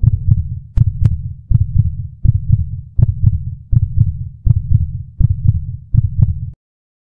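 Heartbeat sound effect: steady lub-dub double beats at about 80 a minute, stopping suddenly about six and a half seconds in.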